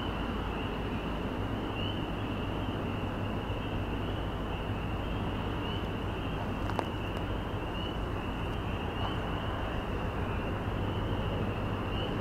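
A steady chorus of high-pitched peeping frogs over a low, steady rumble that grows slightly louder near the end.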